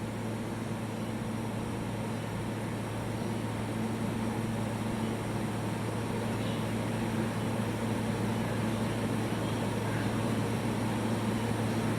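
Steady electrical hum and fan noise from a switched-on fiber laser cleaning machine idling, with no laser firing.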